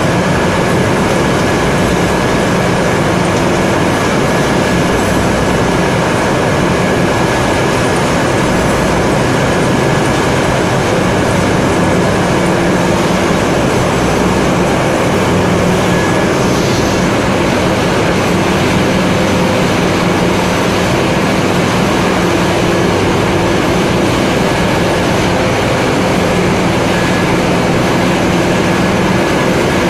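Flour packing machinery running, a steady, loud machine noise with a constant high whine over a low hum.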